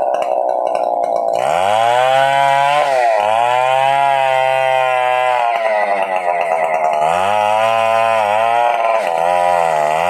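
Stihl 070 two-stroke chainsaw running at high revs. Its pitch climbs about a second and a half in, dips briefly, sags around six seconds and climbs again, as the throttle or the cutting load changes.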